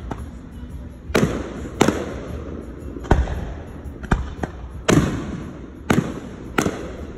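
Aerial firework shells bursting: a string of about eight sharp bangs at uneven spacing, some in quick pairs, each followed by a trailing echo.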